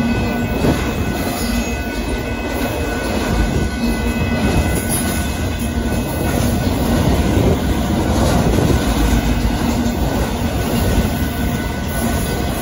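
Union Pacific freight train of autorack cars rolling past: a steady, loud noise of steel wheels running on the rails, with thin, faint, high tones over it during the first few seconds.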